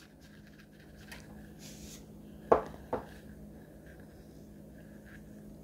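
Sea salt shaker being shaken and knocked over a frying pan, the salt sticking and hard to get out, with two sharp knocks in quick succession about halfway through. A faint steady hum runs underneath.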